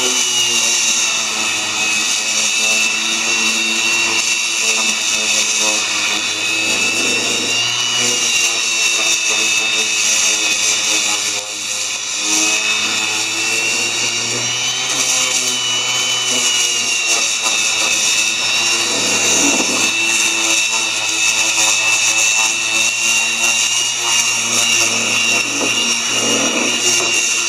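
Variable-speed random orbital sander running while sanding a wooden handrail joint: a steady, loud high whine whose pitch wavers slightly as the pad is worked against the wood, with a brief dip about eleven seconds in.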